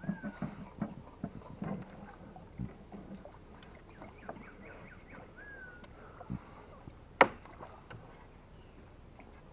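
Scattered chirping animal calls and small clicks, with two short whistled glides. One sharp knock about seven seconds in is the loudest sound.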